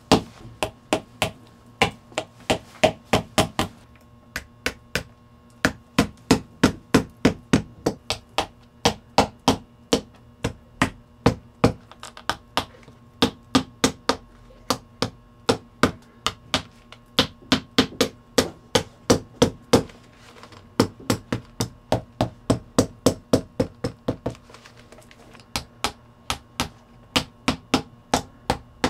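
Shoemaker's hammer striking a hiking boot in quick runs of sharp blows, about three a second, with short breaks between the runs.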